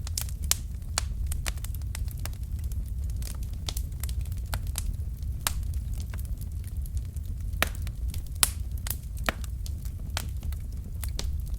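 Log fire in a fireplace crackling: irregular sharp pops and snaps from the burning wood over a steady low rumble of the flames, with one louder pop about eight seconds in.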